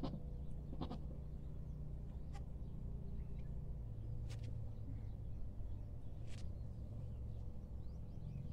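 Goat bleating in two short calls in the first second, then a few brief sharp ticks, over a steady low rumble.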